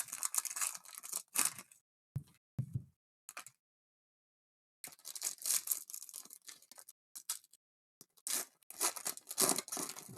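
Foil trading-card packs being torn open and the cards handled, giving bursts of ripping and crinkling, with a pause of about a second partway through.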